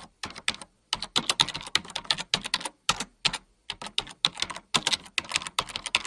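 Fast typing on a computer keyboard: a rapid, uneven run of key clicks with a couple of short pauses.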